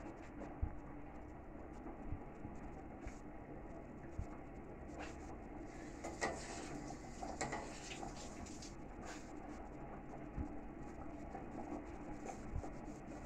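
Rosogolla boiling in sugar syrup in a steel pot, the syrup bubbling steadily, with occasional light clicks of a spoon against the pot as they are stirred.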